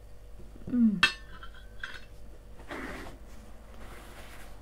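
A metal fork clinks sharply against a plate about a second in, with a smaller clink a moment later. Then come soft rustles of a paper napkin being handled.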